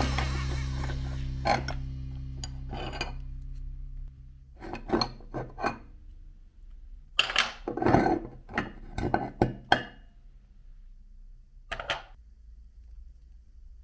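A held musical chord dying away, followed by a scattering of short knocks and clinks, loudest around eight seconds in.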